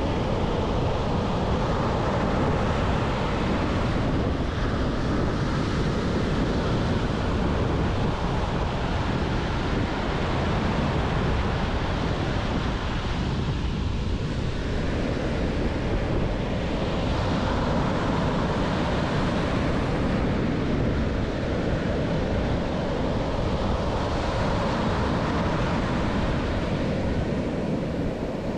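Ocean surf breaking and washing up a sandy beach: a continuous rush of foam and water that swells and eases every few seconds as each wave comes in and draws back.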